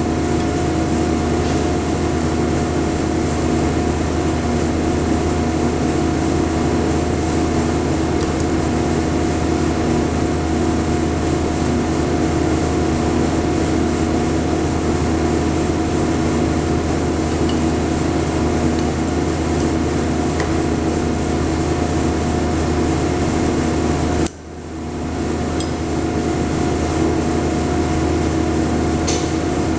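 Steady electrical machine hum of shop equipment, with fixed tones over a low drone. It drops suddenly about four-fifths of the way through and swells back within a second or two. A few faint metal clicks come from clamps and locking pliers being handled.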